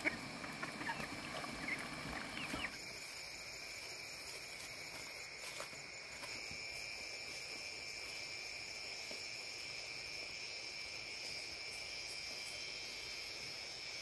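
Chickens clucking and chirping for the first few seconds, then an abrupt change to a steady, high insect drone of several even, unbroken tones.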